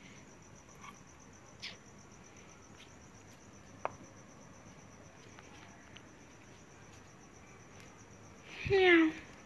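Crickets chirping in a steady, finely pulsing high trill, with a few faint clicks. Near the end a short, loud call falls in pitch.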